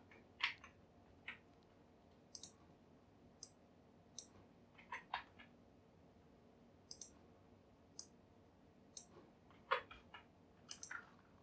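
Faint, scattered computer mouse clicks and keyboard key presses while operating Blender: about a dozen short, separate clicks at irregular intervals, the loudest about ten seconds in.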